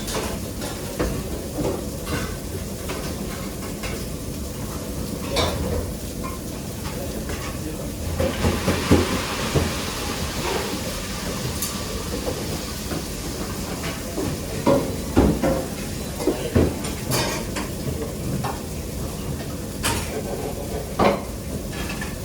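Kitchen work sounds: a steady low hum under scattered knocks and clatter of pans and utensils, with a spell of hissing from about eight to twelve seconds in.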